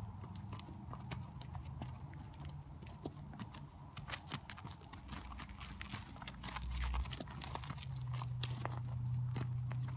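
A Nez Perce horse's hooves walking on gravel and grass: an uneven run of sharp crunching steps, over a low steady rumble that grows louder near the end.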